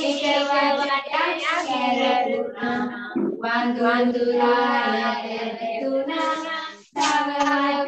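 A voice singing a Sinhala children's verse (kavi) in long held notes, with brief breaks about three seconds in and near the end.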